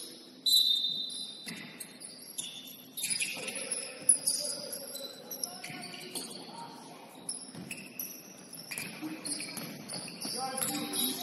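Sneakers squeaking on a hardwood gym floor during a basketball game, with a basketball bouncing now and then and players calling out.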